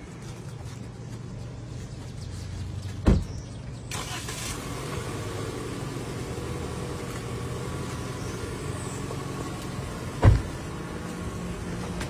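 A car engine idles steadily while car doors shut with two heavy thuds, one about three seconds in and another near the end.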